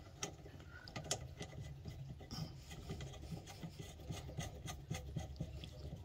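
Faint clicks and rubbing as a washing machine's drive-motor pulley and its bolt are fitted onto the motor shaft by hand.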